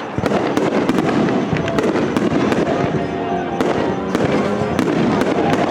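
Fireworks display: many shells bursting and crackling in rapid succession, several bangs a second, with no let-up.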